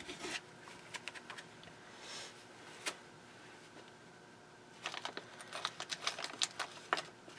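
Quiet handling sounds at a work table: scattered small clicks and taps, then a quick run of clicks over the last two and a half seconds.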